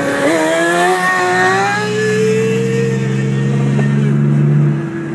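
Sport motorcycle engine revving hard as it accelerates away from close alongside a car, its pitch climbing over the first two seconds and then holding steadier. Under it, the steady drone of the car's engine and road noise.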